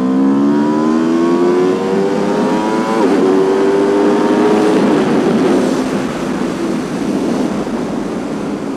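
2021 Aprilia RSV4's 65-degree V4 engine accelerating hard, the revs climbing, with a quick upshift about three seconds in and the revs climbing again. Near the middle the engine note fades under wind rush.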